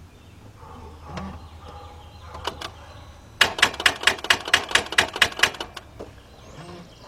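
Starter solenoid of a 2004 Mercedes-Benz C320 clicking rapidly, about five clicks a second for two seconds, with the engine not cranking. This is a sign of the starter not getting enough current, which the mechanic puts down to a bad ground.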